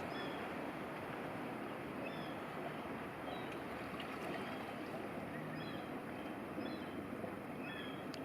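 Steady rush of moving water, with short high chirps dotted through it, several coming close together near the end.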